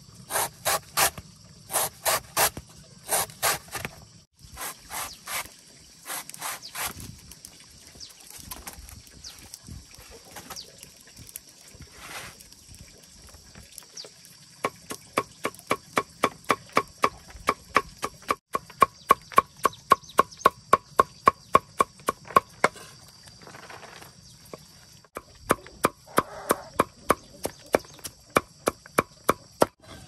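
Cleaver chopping banana stem on a wooden chopping block: a few heavy cuts at first, then a long run of fast, even chops about four to five a second, mincing the slices, and a short burst of chops near the end.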